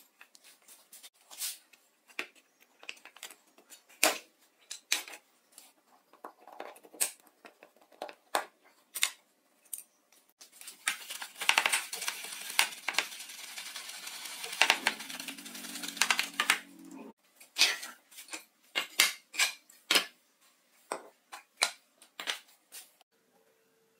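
Sharp taps and clicks of tools and plastic flashlight parts being handled. About halfway through, a few seconds of a stiff brush scrubbing a plastic flashlight housing in soapy water. After that, more scattered clicks as the parts are set down.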